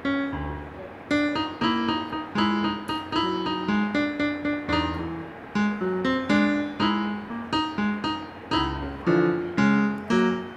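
Instrumental background music: a run of piano-like keyboard notes with a few low bass notes underneath.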